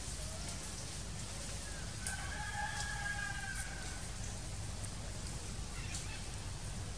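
A rooster crows once, a long drawn-out call about two seconds in, over a steady low rumble.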